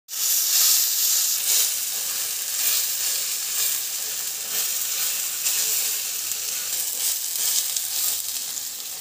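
Sabudana and grated raw potato batter sizzling in hot peanut oil in a frying pan, a steady hiss that starts suddenly, with a steel spoon scraping as the batter is spread flat.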